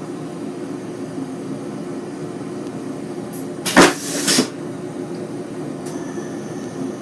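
Steady hum inside a Bombardier BiLevel passenger coach's washroom, broken a little past halfway by one sudden loud clatter lasting under a second.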